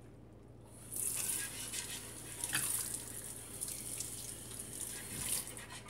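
Water from a kitchen tap running into the sink and splashing over hands and a wet paper page as it is rinsed. It starts about a second in.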